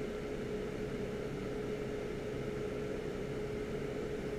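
Hot air rework station blowing steadily, a constant hiss with a steady hum, while reflowing solder balls on a BGA chip.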